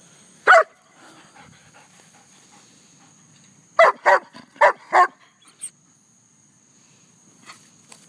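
German shepherd barking in play: one bark about half a second in, then a quick run of four barks around four seconds in and a softer one just after.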